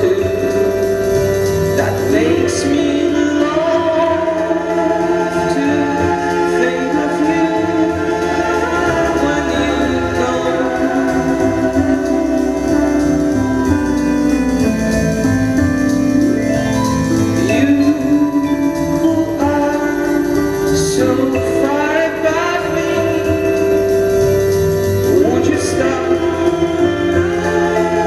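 Live music: layered, held notes over electronics, with singing but no clear words.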